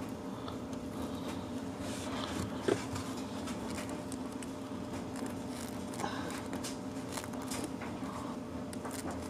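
Faint clicks and rustling from a plastic T-tap wire connector and wiring harness being handled and squeezed shut onto a wire with pliers, with one sharper click about three seconds in, over a steady low hum.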